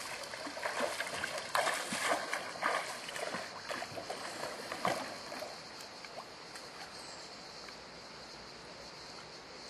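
Water splashing and sloshing from a swimmer's strokes in shallow river water, in irregular bursts that die down about halfway through, leaving a soft steady rush of flowing water.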